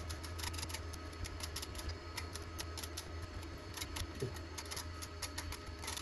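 A hand tap being turned in a tap wrench to cut threads in drilled holes in a lathe carriage: light, irregular metallic clicks, several a second, over a steady low hum.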